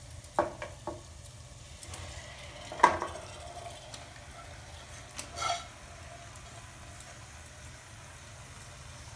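Marinated chicken pieces being tipped and scraped from a steel bowl into a pressure cooker of frying masala: a few knocks and clinks of the bowl and pieces against the pot, the loudest about three seconds in, over a steady low sizzle.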